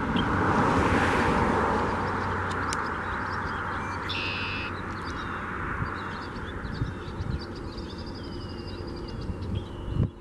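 Outdoor ambience: a broad rushing noise that swells about a second in and slowly fades, over a low wind rumble on the microphone. Small birds call faintly: a short buzzy note about four seconds in, then quick chirps and a rapid trill.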